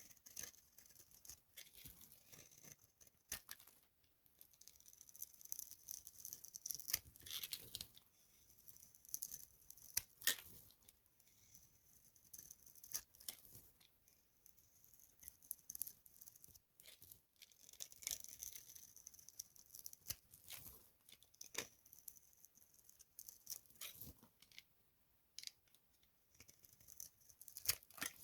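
Dry soap being crushed and broken by hand, giving faint, irregular crisp crackles and crunches with an occasional sharper snap.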